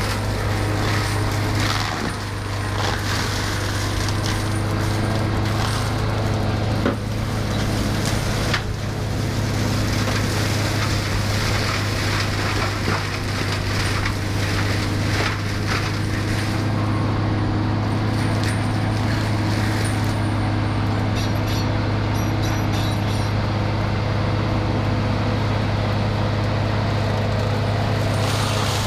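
Engine of a heavy tree-removal machine running steadily under load, with wood cracking and splintering through the first eight or so seconds as an almond tree is torn out and broken up.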